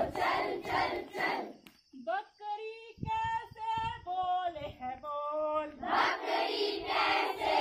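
A woman singing a children's group song in held, stepping notes, with a group of children's voices singing and chanting at the start and again near the end.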